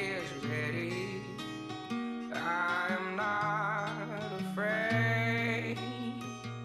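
A man singing a country-style song to guitar accompaniment, with two long held notes that waver in pitch.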